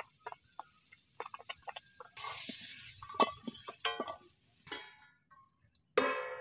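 Metal spoon and utensils clinking and scraping against stainless-steel bowls in a run of short clicks while a spice paste is stirred and food is moved between bowls. About six seconds in comes a short, loud pitched call.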